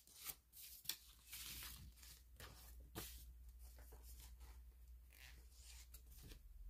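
Faint rustling of a paper sticker sheet with a few small sharp clicks, the sound of stickers being handled and picked off the sheet with metal tweezers.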